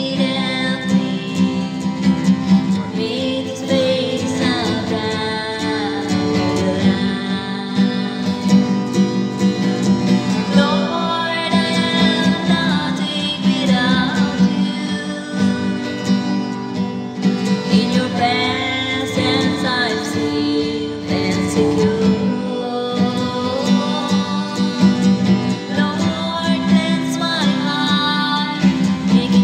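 A woman singing a slow worship song while playing chords on an acoustic guitar.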